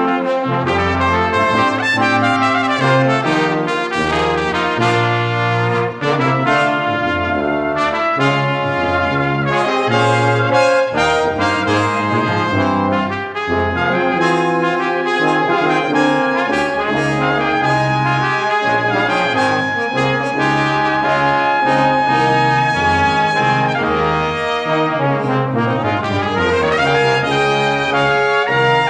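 Brass music with trumpets and trombones playing a continuous run of changing notes.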